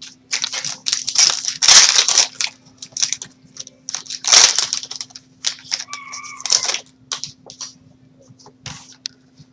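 Plastic wrap and foil card-pack wrappers crinkling and tearing in irregular rustles as a trading-card box and its packs are opened.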